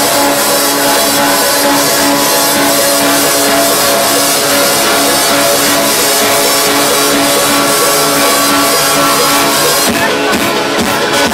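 Loud electronic dance music played over a dance-tent sound system, with sustained synth tones and a pulsing bass note. About ten seconds in, the high end drops out and the beat changes to separate hits.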